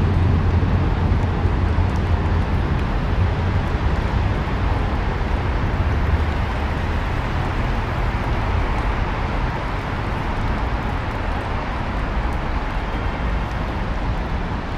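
Steady low rumble of city traffic, an even background noise without distinct events.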